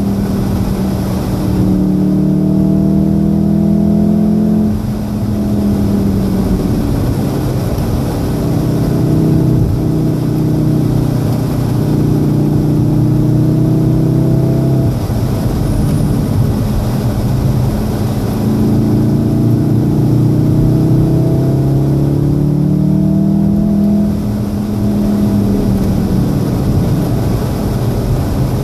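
2014 VW Golf VII R's turbocharged four-cylinder engine heard from inside the cabin, pulling hard with its pitch climbing, then dropping away three times as the throttle comes off or a gear changes. Tyre and road noise from the wet track hiss steadily underneath.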